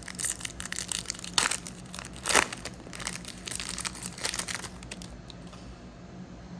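Foil wrapper of a Donruss football trading card pack crinkling as it is torn open, with two sharper rips about one and a half and two and a half seconds in; the rustling dies down after about five seconds.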